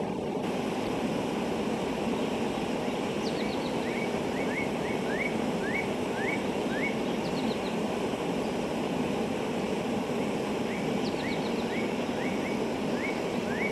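A bird calling in runs of short, quick rising chirps, three to five at a time, over a steady rushing background noise.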